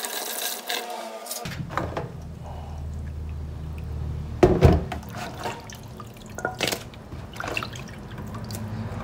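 Hands rinsing small whole mackerel scad in a plastic basin of water: swishing and splashing with drips. Water running into the basin stops about a second and a half in, and there is one louder thump about four and a half seconds in.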